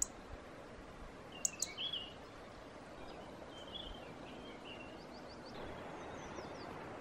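Faint outdoor ambience with small birds chirping now and then: a few short calls about one and a half seconds in, more around four seconds, and faint rising notes near the end.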